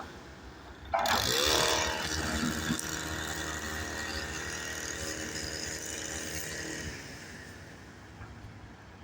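A motor vehicle engine that starts up loudly about a second in, its pitch sweeping, then runs steadily and fades after about seven seconds.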